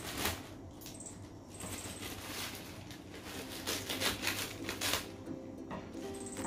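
Plastic parcel wrapping being torn and crinkled by hand: uneven crackling rustles, loudest about four to five seconds in.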